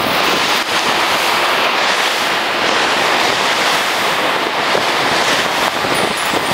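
Ocean surf breaking on a sandy beach, a loud steady rush, with wind buffeting the microphone.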